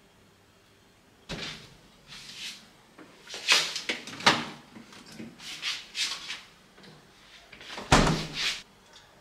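Kitchen handling sounds while food is made: a sudden thump about a second in and a louder one near the end, with a run of short clattering and rustling noises between.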